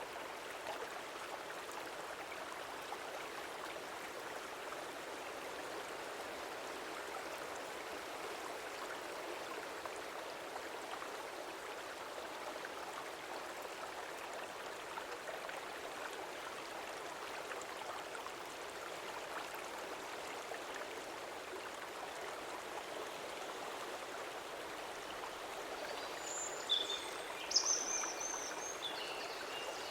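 Stream water flowing steadily. A few short high-pitched chirps sound near the end.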